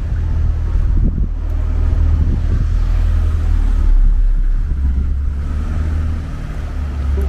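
Strong gusty wind buffeting the microphone, a loud, uneven low rumble.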